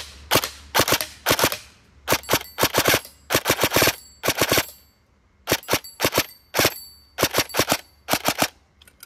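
Airsoft electric gun firing in short bursts of one to four sharp shots, each burst a quick rattle of gearbox cycles, with brief pauses between bursts. It runs on a 7.4 V LiPo battery through a MOSFET set with no pre-cocking and no active brake.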